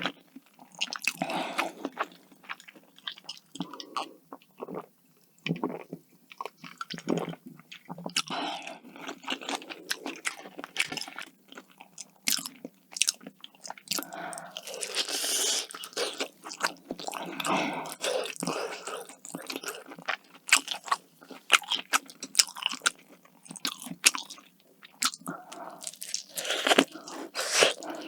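Close-miked eating sounds: a person biting and chewing food, with many irregular crunches.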